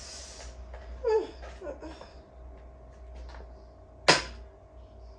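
A small cardboard product box being worked open by hand, with a short wordless vocal sound falling in pitch about a second in, and one loud sharp snap a little after four seconds in as the packaging gives.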